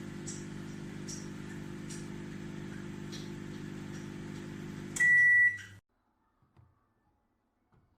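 Sharp R207EK microwave oven running with a steady hum, then a single loud high-pitched end-of-cycle signal about five seconds in, as the oven shuts off and the hum stops.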